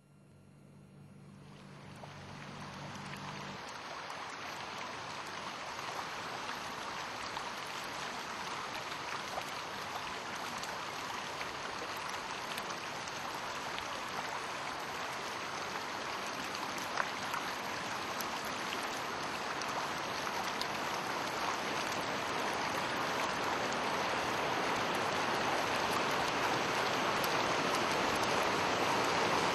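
Steady rush of flowing water. It fades in from silence over the first few seconds and then slowly grows louder, with a faint low hum at the start.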